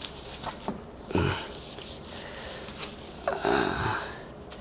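Plastic-gloved hands rubbing dry rub seasoning into a raw pork shoulder: wet rubbing and glove rustling in two short spells, about a second in and again near the end, with a few faint clicks before the first.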